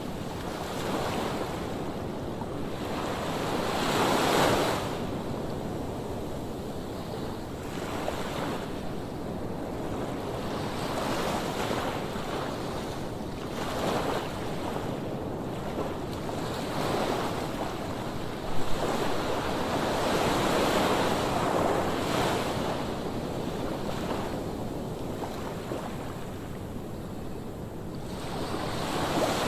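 Waves breaking on a shore, the surf swelling and falling every few seconds, with wind on the microphone. A brief thump about two-thirds through.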